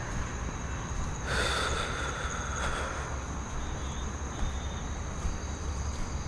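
Crickets trilling steadily at night, over a low steady rumble, with a louder stretch of noise lasting about two seconds starting about a second in.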